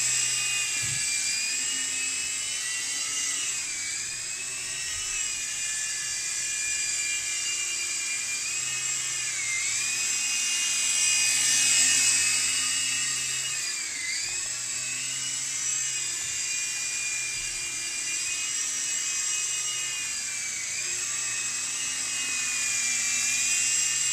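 Blade mCX micro coaxial RC helicopter in flight: a high electric motor and rotor whine that repeatedly dips in pitch and swings back up as the throttle is worked, about four times, loudest around the middle.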